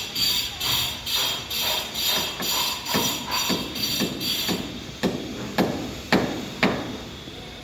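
Rhythmic pulsing at about two beats a second until about four and a half seconds in, then four sharp hammer strikes about half a second apart on a building site.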